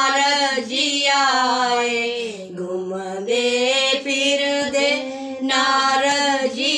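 An elderly woman singing a Himachali devotional bhajan unaccompanied, holding long, slowly wavering notes in a drawn-out phrase.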